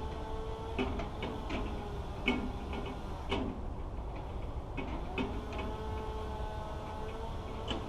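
An engine running with a steady pitched hum that sags and recovers in pitch a few times, with scattered sharp knocks and clicks over it.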